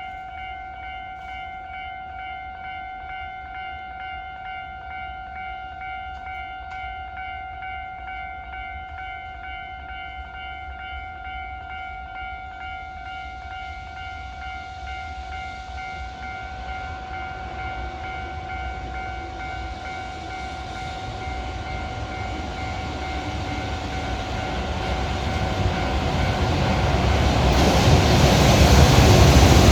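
A level-crossing warning bell rings steadily while a freight train approaches. The train's rumble grows from about halfway through, and near the end the EH500 electric locomotive and its container wagons pass close by, loud enough to drown out the bell.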